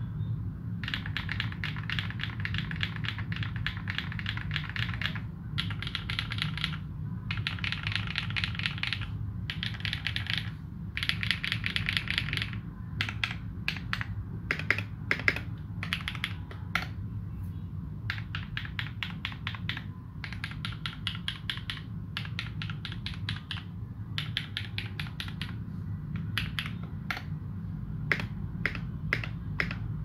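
Typing on a Morgan65 custom mechanical keyboard with lubed Holy Panda tactile switches and GMK doubleshot ABS keycaps: fast runs of keystrokes a second or two long with short pauses between, and slower, separate key presses in the middle stretch. A steady low hum sits underneath.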